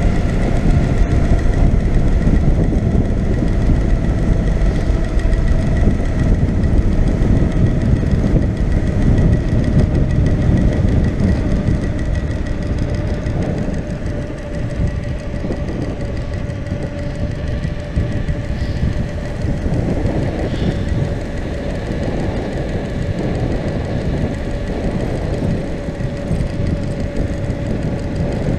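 Steady rattling and rumbling of a mountain bike descending a rough gravel road, with tyre noise and wind on the microphone and a faint steady hum underneath.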